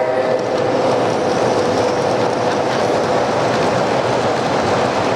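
O-gauge model train running on the layout's track: a steady rolling rattle of wheels on rail with faint clicks. A train whistle tone fades out in the first half second.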